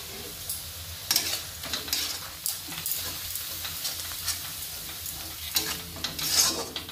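Spatula scraping and stirring a spice masala around a kadhai, with irregular scrapes over the steady sizzle of the masala frying in mustard oil.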